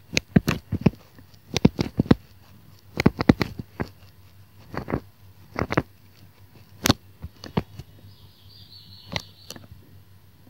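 Stylus tapping and clicking on a tablet screen while words are handwritten: bursts of sharp little clicks, several in quick succession, with short pauses between words.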